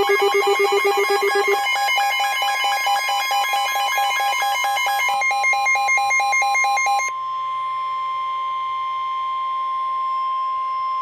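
Emergency alert tones preceding a severe thunderstorm warning. A fast trilling, ringing electronic warble runs to about seven seconds in over a steady high tone. The steady tone then continues alone as the warning alarm and cuts off abruptly near the end.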